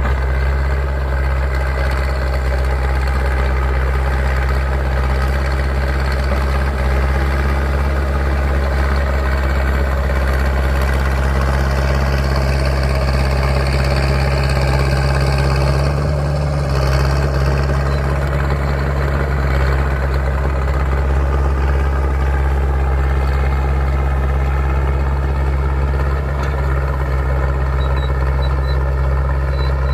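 Caterpillar D3C bulldozer's diesel engine running steadily at an even speed.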